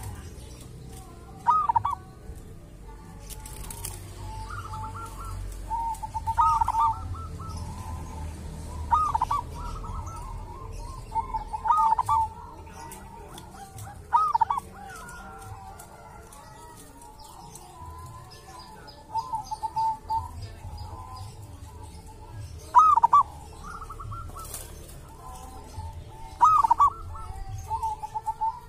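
Zebra dove (perkutut) cooing: short phrases of quick rising-and-falling coos, repeated about every two to four seconds.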